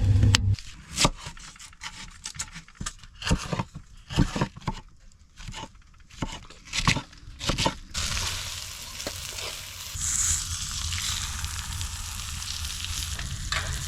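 A newly lit fatwood fire in a wood-burning sauna stove crackling, with irregular sharp pops. From about eight seconds in, a steady sizzling hiss takes over.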